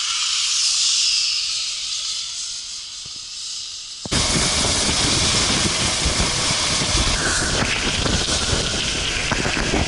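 A zipline trolley running along its steel cable with a steady high hiss that eases over the first few seconds. About four seconds in, it cuts to loud wind buffeting the microphone and road noise from a moving vehicle.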